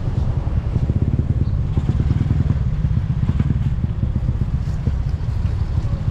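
A motorcycle-type engine running close by on a street, a steady low rumble with a fast pulse to it.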